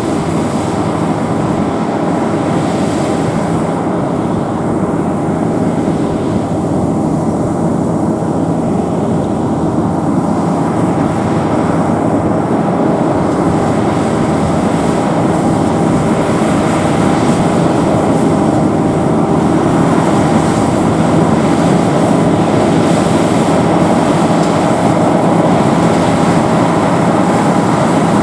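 Sakpattana SS100 mini rice combine harvester running steadily: a constant mechanical drone from its engine and machinery, with a faint steady whine above it.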